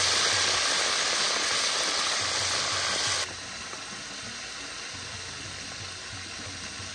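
Yam slices frying in hot oil: a dense, steady sizzle that drops abruptly to a quieter sizzle about three seconds in.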